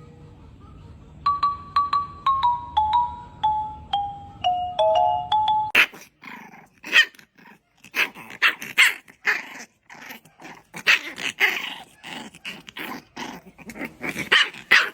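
A short jingle of clear, marimba-like notes stepping downward, then, about six seconds in, a puppy barking and growling in short, sharp yaps, about two a second.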